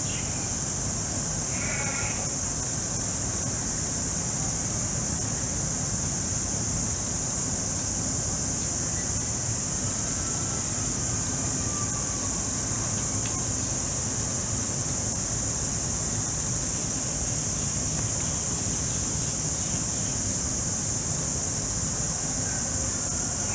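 Steady insect chorus of crickets or similar insects, loud and high-pitched, with a faint pulsing. A few short animal calls break in about two seconds in and again near the end.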